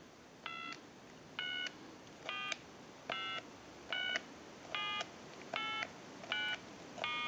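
Touch-tone (DTMF) dialing from a telephone keypad as digits are pressed one after another: about nine short two-tone beeps, a little under one a second.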